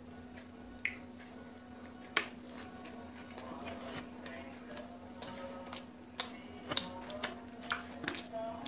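Close-miked eating sounds: mouth clicks and smacks from chewing soft pav and kebab, with fingers picking at food on a steel plate. A few scattered clicks at first, growing busier in the second half, over a steady low hum.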